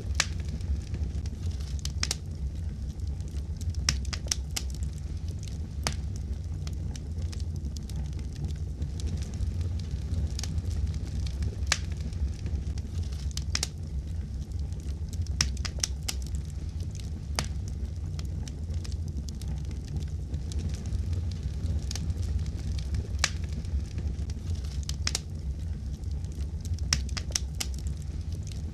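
Wood fire crackling in a fireplace: scattered sharp pops and snaps at irregular intervals over a steady low rumble of the burning.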